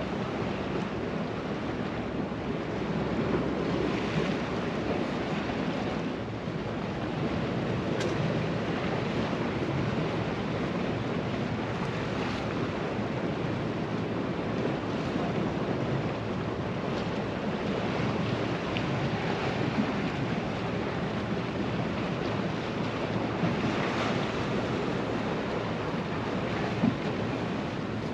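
Sea surf washing against a rocky shore, a steady rushing that swells and eases, with wind buffeting the microphone.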